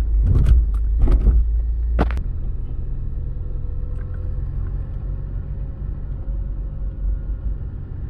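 Car driving along a road: a steady low road-and-engine rumble, with a few short rattles in the first second and a half and a sharp click about two seconds in.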